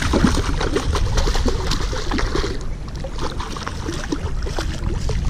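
Hooked trout thrashing at the surface during the fight, a rapid run of splashes.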